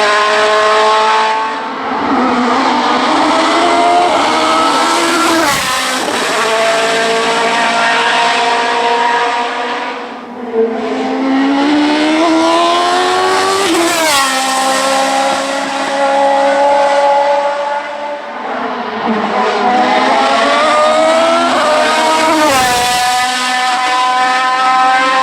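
Hill-climb race car engines at full throttle, their pitch climbing and then dropping sharply at upshifts, about three times over.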